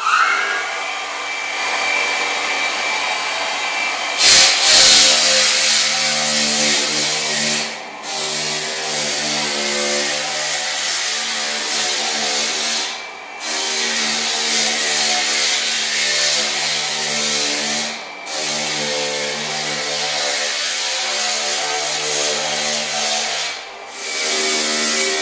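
Drum floor sander running, its drum grinding paint and wood off floorboards: a steady motor hum under a loud rasping hiss. It gets louder and harsher about four seconds in, and the sound drops away briefly four times.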